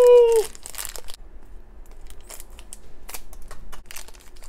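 Thin clear plastic wrapper around a small toy figure crinkling in the fingers as it is worked open, in irregular short crackles.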